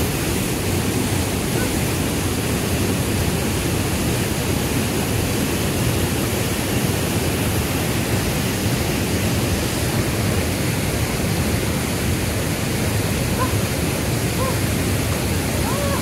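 Steady, even rush of falling water from a waterfall and its stream, unchanging throughout.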